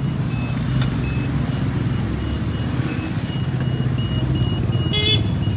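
Street traffic, mostly motorbike and car engines passing in a steady low rumble, with a short vehicle horn beep about five seconds in.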